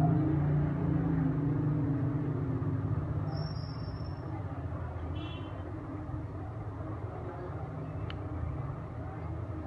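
Steady rumble of road traffic, with a vehicle's engine sound fading over the first few seconds. A couple of brief high-pitched chirps come in the middle.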